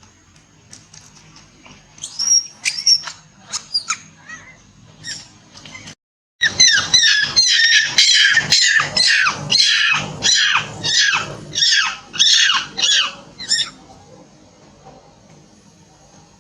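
A monkey's loud, high-pitched calls: a few short squeaks, then a fast run of shrill screams, about two a second, each falling in pitch.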